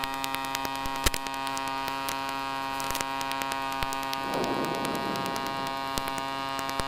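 Steady droning hum of the Flexrotor drone's engine and rotor holding a constant hover, with scattered faint clicks and a brief rough patch about four seconds in.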